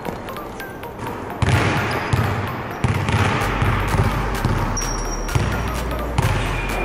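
Basketballs bouncing on a hardwood gym floor: a series of separate low thuds at an uneven pace, starting about a second and a half in.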